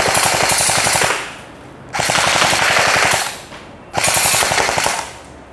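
Colt M4 CQB-R electric airsoft rifle (AEG) firing plastic BBs in rapid full-auto bursts. One burst runs on from before and stops about a second in, a second follows shortly after, and a short third comes near the end.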